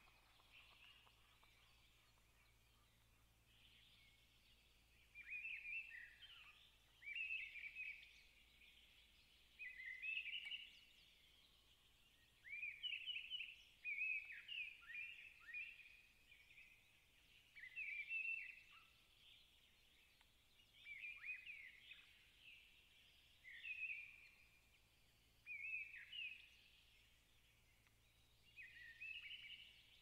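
A songbird singing: short phrases of quick, falling notes, repeated every two to three seconds from about five seconds in, over a faint background hiss.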